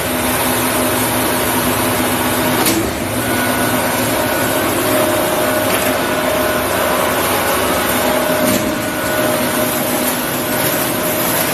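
Steel roll-forming line with a flying shear running: a steady mechanical whir with faint humming tones, and a couple of faint knocks about a quarter and three-quarters of the way through.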